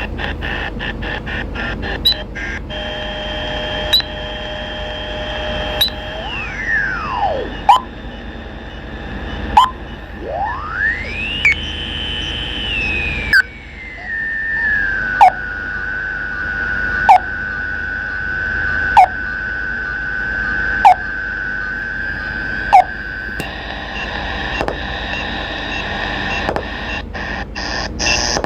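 AM radio static: a steady hiss with whistling tones that glide down and back up in pitch, then settle on one held whistle. Sharp clicks come about every two seconds, with a quick run of clicks at the start.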